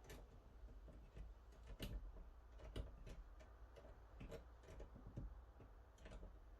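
Faint, irregular clicks and light taps, about one a second, of small hard objects being handled, over a low hum.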